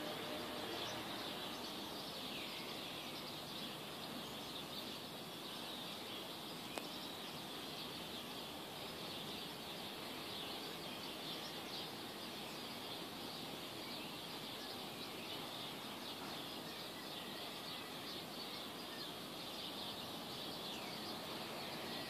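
Dawn chorus of many small birds chirping and twittering continuously over a steady background hiss, with one brief click about seven seconds in.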